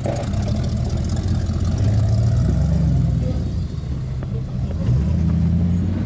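Engine of a full-size Chevy square-body truck working over rocks, its revs rising and falling unevenly as it crawls.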